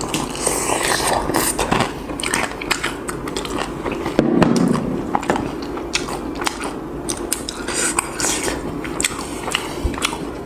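Close-miked biting and chewing of sauce-coated fried chicken, with many short crunches and clicks.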